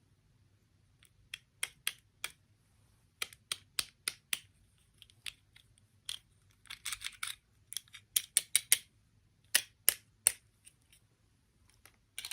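Small hard plastic toy pieces being handled: irregular sharp clicks and taps, with a quick rattling flurry about seven seconds in.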